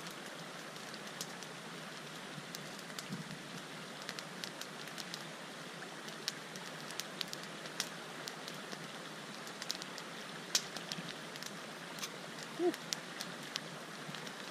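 Small campfire crackling: irregular sharp pops and snaps over a steady hiss. A brief low voice sound comes near the end.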